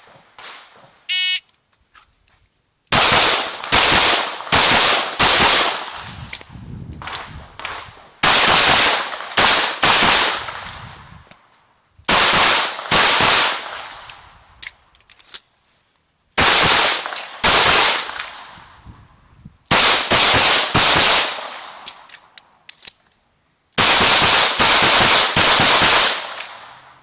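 A short electronic beep from a shot timer, then a Glock 17 9mm pistol firing in six quick strings of shots, with pauses of a second or two between the strings.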